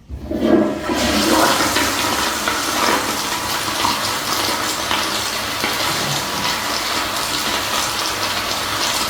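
Kohler toilet flushing: a loud rush of water that starts abruptly and holds steady.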